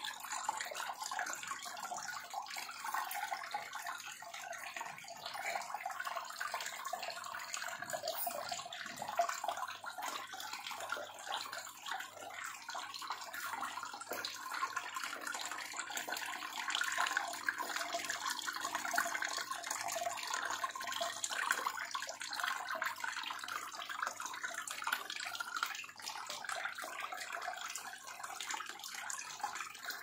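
Water splashing and trickling steadily down a small homemade tiered tabletop waterfall of stacked basins.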